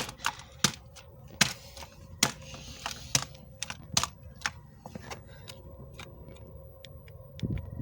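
Plastic TV remote being stamped on underfoot: a series of sharp cracks and clicks at irregular intervals, louder over the first five seconds and fainter and smaller after that.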